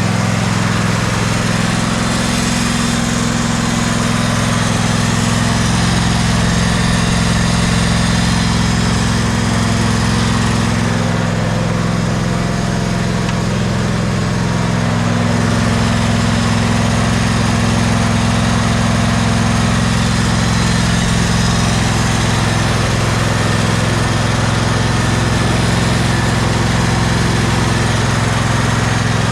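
Husqvarna riding mower's 24 hp Briggs & Stratton V-twin engine running steadily, left to run so the old, stale gas circulates out after sitting all winter; it seems to run pretty good.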